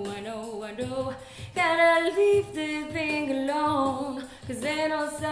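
Music: a woman's voice singing a wordless melody, gliding between held notes over a sparse backing.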